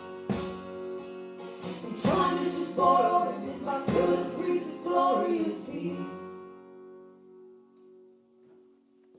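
Closing bars of a live acoustic folk song: strummed acoustic guitar chords under sung harmony voices, with a final chord left ringing that fades away near the end.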